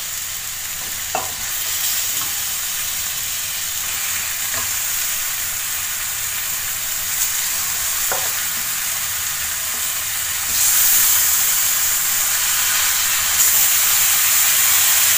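Onion, tomato and spice masala sizzling in oil in a cheenachatti (Kerala wok) as raw chicken pieces are added. The steady sizzle gets louder about ten seconds in, with a few faint clicks.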